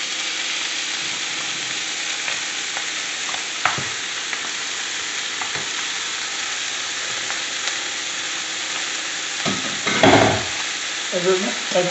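Chicken leg quarters sizzling steadily as they brown in a frying pan on the stove, with a few faint clicks and one short, louder knock about ten seconds in.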